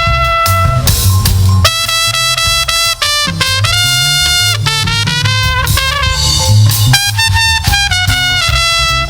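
Live instrumental gospel band music: a brass-toned lead plays a melody of held notes over a heavy bass line.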